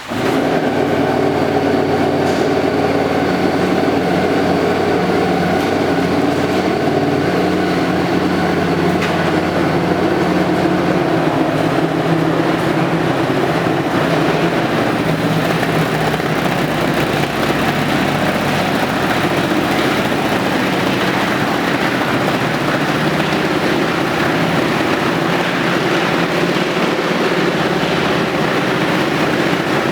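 Engine running steadily, with a continuous low hum that starts abruptly and holds at one even level throughout.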